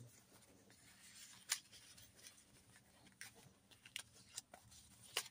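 Faint handling of paper and card in a handmade journal: a few soft taps and rustles as pages and tags are moved, the clearest about a second and a half in, otherwise near silence.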